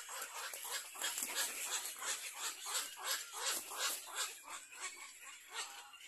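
Black-crowned night heron chicks in the nest giving a rapid run of harsh, raspy calls, about three a second, easing off near the end.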